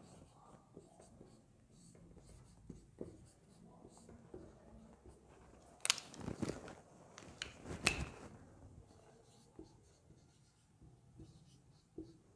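Marker writing on a whiteboard: faint scratches and taps of the tip, with two sharper knocks about six and eight seconds in.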